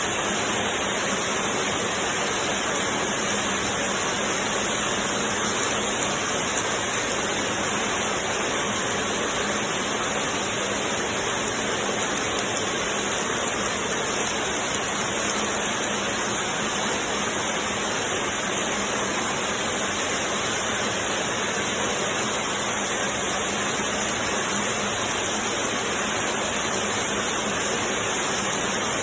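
Automatic 10-gauge glove knitting machine running, a steady, even mechanical hiss and whir with no breaks.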